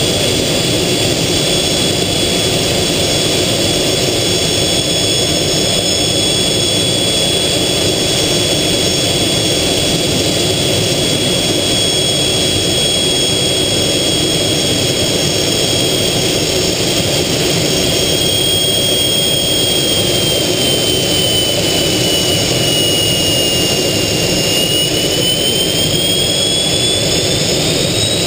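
Aero L-29 Delfín's Motorlet M-701 turbojet heard from inside the cockpit: a steady loud roar of engine and airflow over the canopy, with a high whine that dips a little about three quarters through and rises again near the end as power changes.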